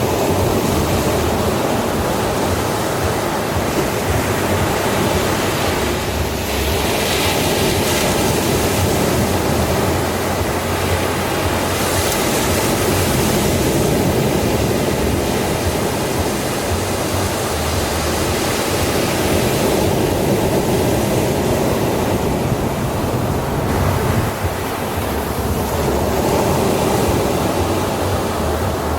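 Ocean surf washing onto a sandy shore: a continuous hiss of water that swells now and then as a wave breaks, about a quarter of the way in, near the middle and again later.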